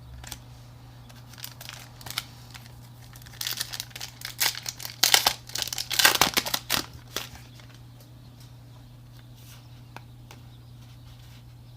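Foil Pokémon trading-card booster pack crinkling as it is torn open, in a run of crackling bursts over about four seconds in the middle, loudest near the end of the run.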